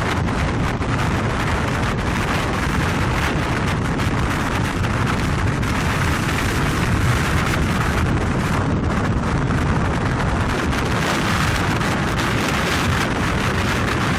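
Strong wind buffeting the microphone: a loud, steady rushing rumble.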